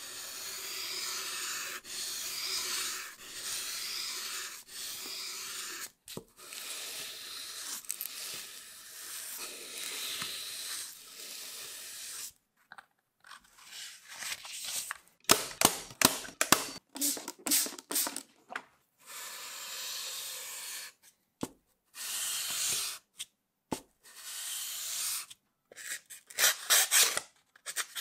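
Wood being abraded by hand: a steady rubbing hiss for about the first twelve seconds, then runs of short, quick scraping strokes with pauses between them.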